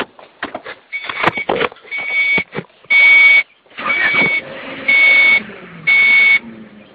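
1990–93 Honda Accord's dashboard warning beeper sounding about once a second, about six evenly spaced beeps, as the ignition is switched on and the warning lights come up. A few clicks and rattles come just before the first beep.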